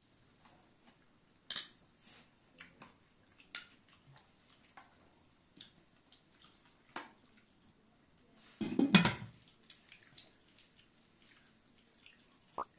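Metal spoons clinking and scraping against ceramic bowls and a serving plate as yogurt is spooned out, scattered light taps with a louder clatter of dishes about nine seconds in.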